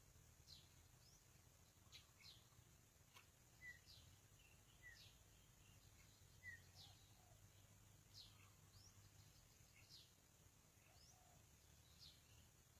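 Faint birdsong: short, high, falling chirps repeating every second or so, with a few lower notes among them, over a steady high hiss.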